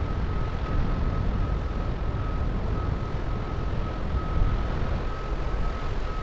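Steady low rumble and rushing noise of a container ship passing close by, with a faint, high steady tone over it.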